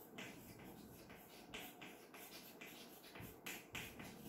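Chalk writing on a blackboard: a faint, irregular run of short strokes as a word is written out.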